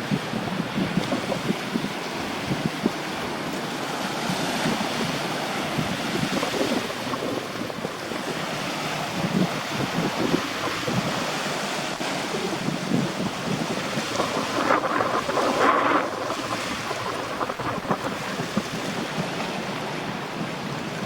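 Surf washing and wind gusting over the microphone in a steady rush, with a brief louder surge about three quarters of the way through.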